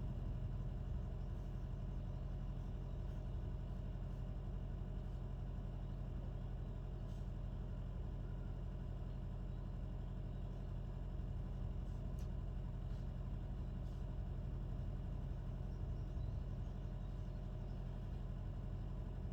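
Steady low hum, with a few faint light ticks over it.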